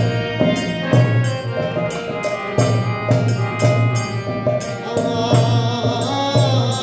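Devotional music: a harmonium sounding held notes over a steady hand-drum beat of about three strokes a second. A man's voice starts a sung chant about five seconds in.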